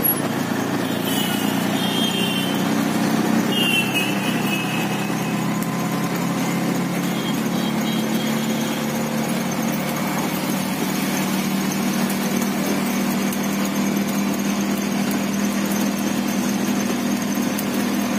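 Vehicle engine running steadily with road noise, heard from inside the cab while driving. Two brief high-pitched squeals come in the first five seconds.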